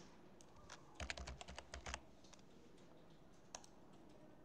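Computer keyboard typing, faint: a quick run of keystrokes about a second in, lasting about a second, with a lone keystroke before it and another near the end.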